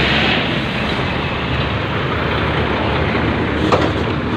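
Heavy truck's diesel engine running as it drives past in traffic, a steady low engine sound under road noise, with one short sharp click near the end.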